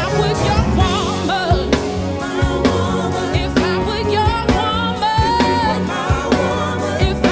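A woman singing a soul ballad with a strong vibrato, moving through runs and long held notes over an instrumental backing with a steady drum beat.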